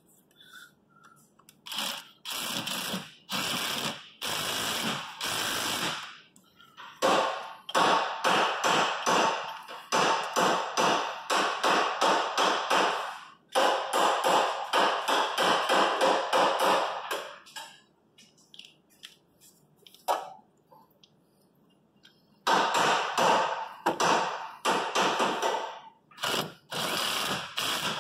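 Cordless power tool running in a string of short bursts with a pulsing chatter, then a longer run in the middle and more bursts near the end, as bolts are run in to fasten the alternator.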